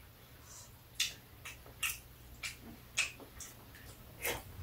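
Metal spoon and chopsticks clicking against ceramic bowls while two people eat: about six short, light clicks spread irregularly, over a faint low hum.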